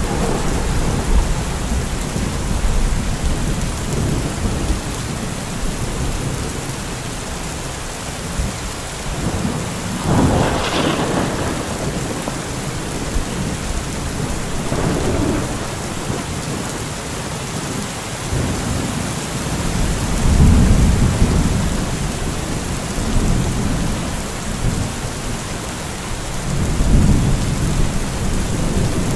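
Heavy rain falling steadily through a thunderstorm, with repeated rolls of thunder: a sharper clap about a third of the way in, then low rumbles near the middle, about two-thirds through and near the end.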